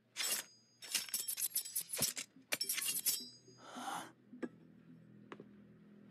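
Rapid metallic jingling and clinking in three bursts, followed by a short whoosh about three and a half seconds in and two single clicks; faint background music underneath near the end.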